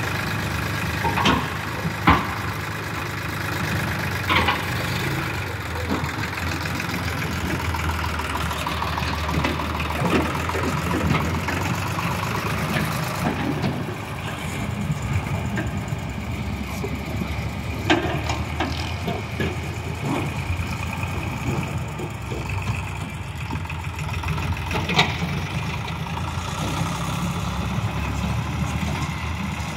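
Sonalika tractor's diesel engine running steadily while its hydraulic tipping trailer dumps soil and the rig pulls away. A few sharp clanks cut through, the loudest about two seconds in and others near 18 and 25 seconds.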